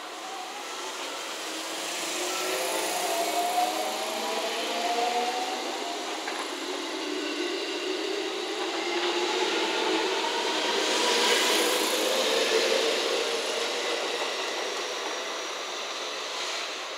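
JR West 207 series electric multiple unit accelerating away from the platform: the traction motors' inverter whine rises steadily in pitch, over wheel and rail noise that grows louder toward the middle and then eases.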